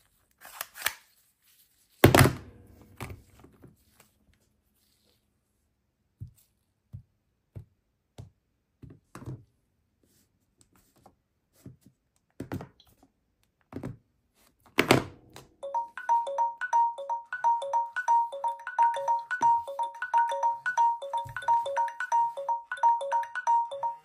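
Handling knocks and screen taps on smartphones, the loudest about two seconds in and just before the fifteen-second mark. About sixteen seconds in, the Samsung Galaxy J1 phones' countdown-timer alarms go off: a fast, even, repeating electronic beep that keeps ringing, the timers having run out.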